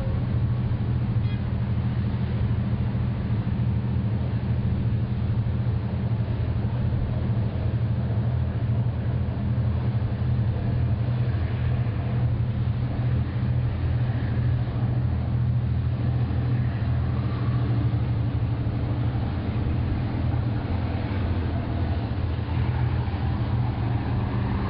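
Steady low drone of the Costa Serena cruise ship's machinery, a few fixed deep hum tones under a light hiss, unchanging.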